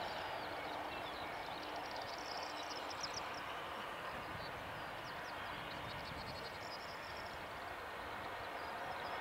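Distant Boeing 757 with Rolls-Royce RB211 turbofans rolling out on the runway after landing, its engines heard as a steady rushing noise that eases a little and picks up again near the end. Birds chirp in short bursts above it.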